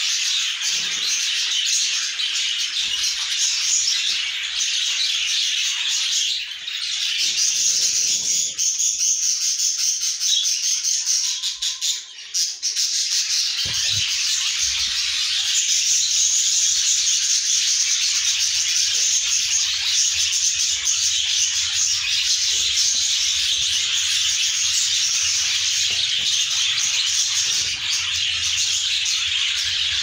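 Budgerigars chattering and chirping without pause, a dense mass of high, rapid chirps and warbles.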